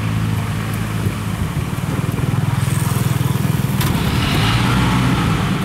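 Small river ferry's engine running steadily as the ferry motors in toward the bank, with a fast even chugging that comes through strongest in the middle.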